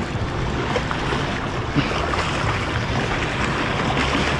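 Small waves washing and splashing against the rocks of a granite jetty, a steady rushing surf noise.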